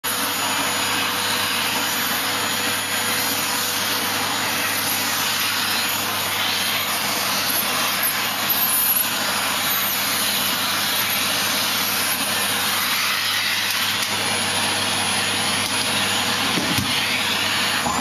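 Vacuum cleaner running steadily as its nozzle is drawn over a cat's coat, sucking up shed fur; a steady whooshing hiss with a faint hum.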